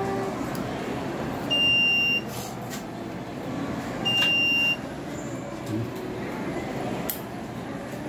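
Two loud, identical high electronic beeps, each lasting well under a second and about two and a half seconds apart, over steady background noise.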